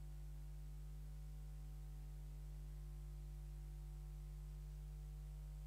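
Faint, steady electrical mains hum, a low buzz that does not change, with no other sound over it.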